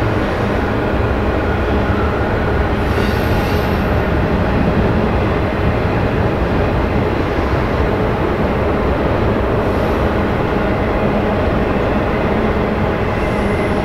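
Suburban SUV driving along a gravel logging road: a steady, loud rumble of engine and tyres.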